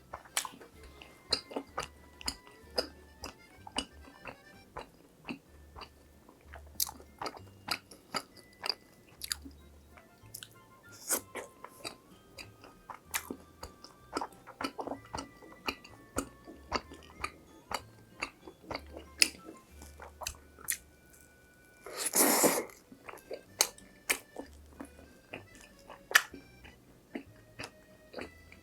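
Close-miked chewing and crunching of crispy fried food, many sharp crunchy bites in quick succession, over soft background music. About two-thirds of the way through there is one louder, noisier burst lasting under a second.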